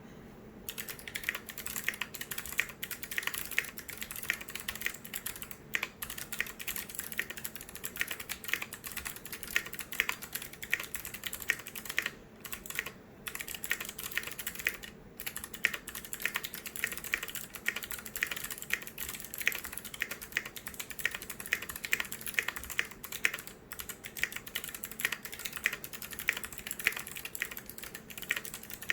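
Continuous fast typing on a 50% custom mechanical keyboard with Kailh Box White clicky switches: dense crisp clicks with a couple of brief pauses around the middle.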